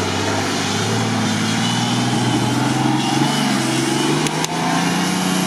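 Nissan Patrol Y61 engine working hard under load as it climbs a steep mud bank, its note rising a little and then holding. There are two short sharp knocks about four seconds in.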